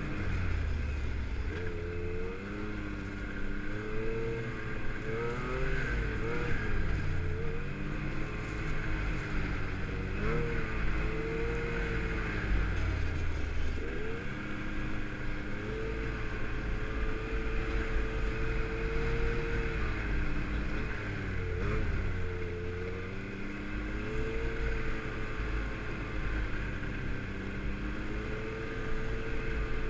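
Yamaha snowmobile engine running under way on the trail, its pitch rising and falling again and again as the throttle is eased off and opened up.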